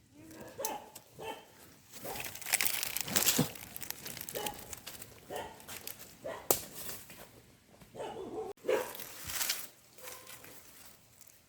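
Rustling and crunching of dry leaves and undergrowth, with a dog barking a few short times.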